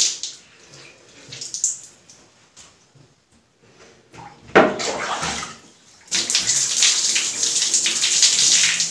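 Wet hair being worked by hand with scattered splashes and drips, a sharp splash about four and a half seconds in, then from about six seconds in a steady stream of water poured from a plastic dipper over the hair, running down into a basin.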